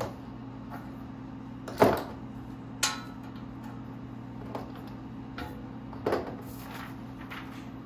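Scattered knocks and clicks of potentiometers being handled against a metal amplifier chassis: a sharp knock about two seconds in, another about a second later and one past the middle, with lighter clicks between, over a steady low hum.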